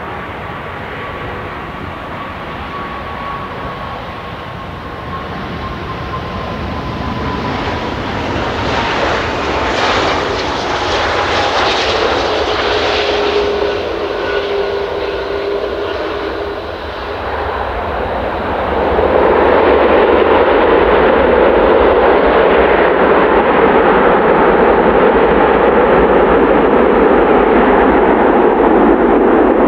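Airbus A340-500's four Rolls-Royce Trent 500 turbofans on a landing: the engine noise swells as the airliner passes on final approach, with a whine that slides slowly down in pitch. After touchdown, the sound jumps about two-thirds of the way through to a loud, steady roar as reverse thrust is applied during the rollout.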